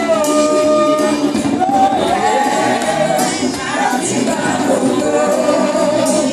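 Live praise music: a singer sings through a microphone and PA, with electronic keyboard accompaniment and a few sharp percussion strikes.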